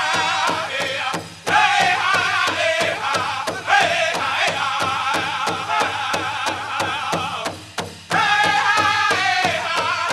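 Powwow drum group playing a men's prairie chicken dance song: a large drum struck in a steady, even beat under high, wavering group singing. The drum and song break off briefly twice, about a second in and again near the end, then come straight back in.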